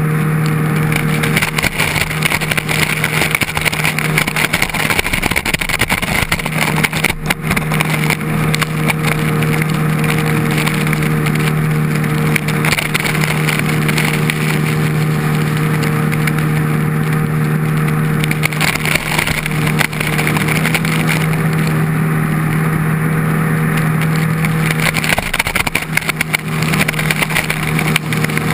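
Jet ski engine running at steady speed while towing a wakeboarder, under a constant rush of spray and churning wake water. The engine note dips briefly a few times.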